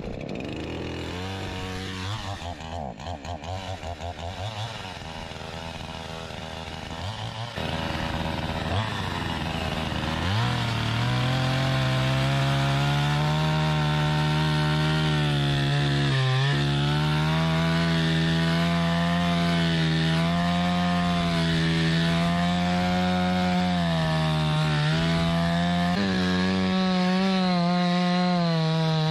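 Two-stroke chainsaw idling unevenly after starting, then revved about ten seconds in and held at full throttle as the bar cuts through lake ice, its pitch dipping briefly twice under the load of the cut.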